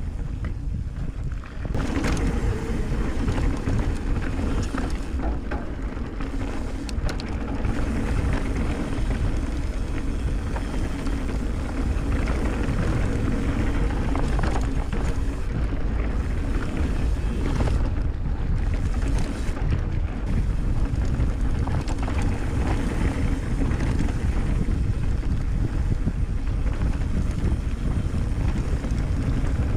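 Wind buffeting the microphone over the steady rumble of mountain-bike tyres rolling along a trail at speed. It gets a little louder about two seconds in.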